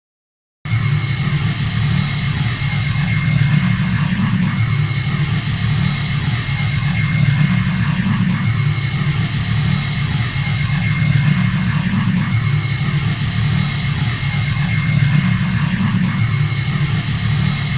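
Sci-fi sound effect of a Nu-class attack shuttle's engines idling: a steady low hum with a thin high whine over it, swelling gently every few seconds. It starts about half a second in, after a moment of silence.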